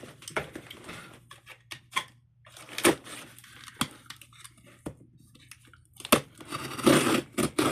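Packaging being torn and crinkled open by hand, in uneven rustling bursts with scattered sharp clicks and knocks.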